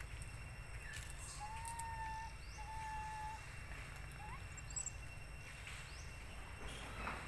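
Outdoor ambience over a steady low rumble, with animal calls: two long, level whistled notes one after the other about a second and a half in, then a few short rising chirps.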